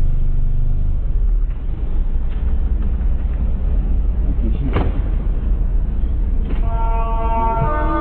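Low steady rumble of a motorcycle idling, with a single sharp click a little under five seconds in. Music comes in near the end.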